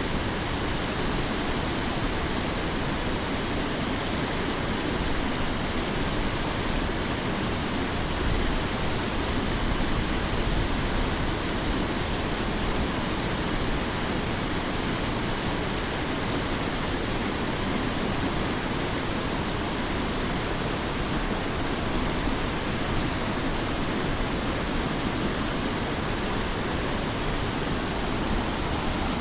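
Waterfall: water falling and splashing in a steady, even rush of noise.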